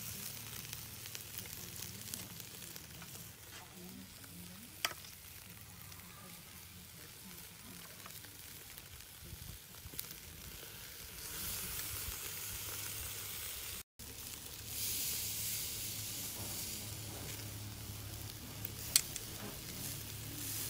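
Marinated duck pieces sizzling on a wire grill over charcoal. The hiss swells in the second half as marinade is spooned over the meat, with a few sharp clicks.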